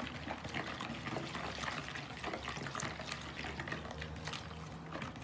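Wire balloon whisk stirring a thin yeast batter of milk, water, sugar and a little flour in a bowl: a steady liquid sloshing with quick light clicks of the wires against the bowl.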